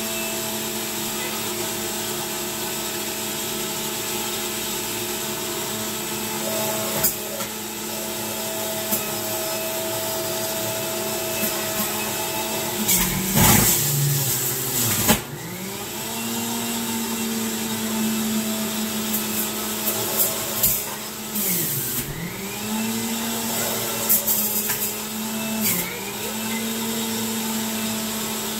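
Electric centrifugal juicer motor running with a steady whine while pineapple chunks are pushed down the feed chute. About halfway through comes a loud grinding stretch as fruit is forced onto the spinning blade, and a few times later the motor's pitch dips briefly under the load and recovers.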